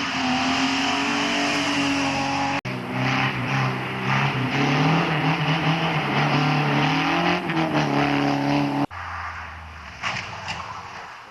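Hill-climb racing cars driven hard up the course one after another, with two abrupt cuts between them. First a BMW E36 3 Series engine, then a classic BMW 02 Series engine at high revs whose pitch falls and rises again through the bend (the loudest stretch), then a hatchback's engine fading as it pulls away.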